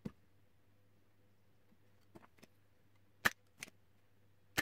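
Scattered small clicks and taps of a flash head's plastic housing and parts being handled, the loudest a little past three seconds in, over a faint steady hum.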